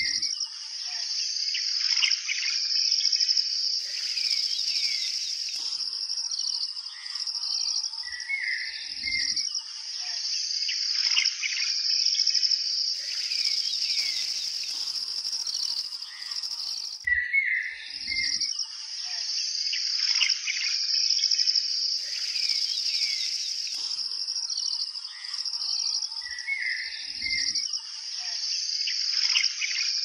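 Birds chirping and calling over a steady, high-pitched insect chorus. It is a looped nature-sound recording, and the same pattern comes round again about every nine seconds.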